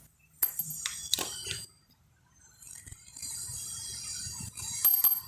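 A motorcycle's 428 drive chain being taken apart at its master link: a few sharp metallic clinks, then a longer, steadier metallic rattle as the chain is handled and drawn off.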